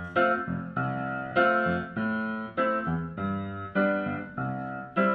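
Background music: keyboard chords struck one after another, a new chord every half second or so, each fading away before the next.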